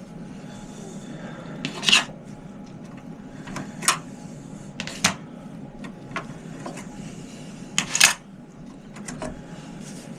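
Sharp plastic clicks and light clatter of RAM memory sticks being pulled out of a desktop computer's motherboard slots and handled, about four louder clicks among smaller ticks.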